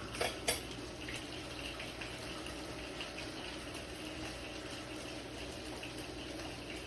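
Two sharp clicks about half a second in, then a steady rush of water.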